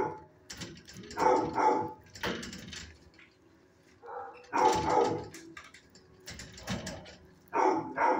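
A dog barking repeatedly, short loud barks coming singly and in pairs with brief quiet gaps between them.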